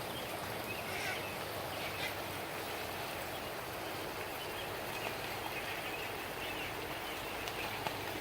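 Steady rush of running water, with a few faint bird chirps.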